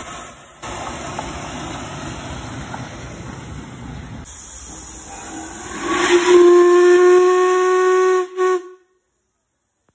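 Steam hissing from a small narrow-gauge steam locomotive, then its steam whistle sounds about six seconds in. The whistle is one steady tone held for about two seconds, then a short second blast after a brief break, and the sound cuts off suddenly.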